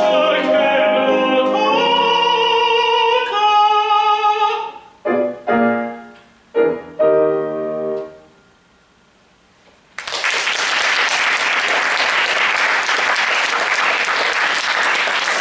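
A tenor sings the closing phrase of an operatic aria over grand piano. The piano then plays a few separate final chords that ring and fade, and after a brief hush the audience applauds.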